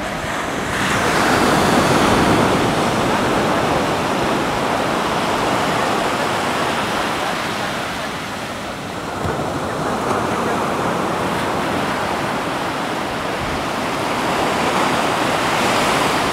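Sea surf washing up a sandy beach: a continuous rushing that swells and eases, loudest about two seconds in and again near the end.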